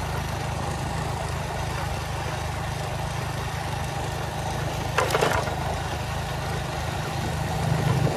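An engine running steadily with a low hum, with a short sharp rattle about five seconds in.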